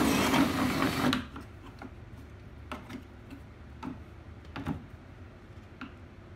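Cordless drill running as it bores a hole at an angle through the UTV's body panel, stopping about a second in. A few light clicks and knocks of handling follow.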